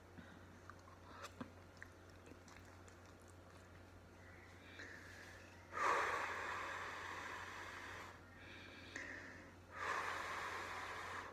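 A person eating breathes out hard twice, each breath a sharp-starting hiss that fades over about two seconds. The first comes about six seconds in and the second near the end, after soft chewing clicks.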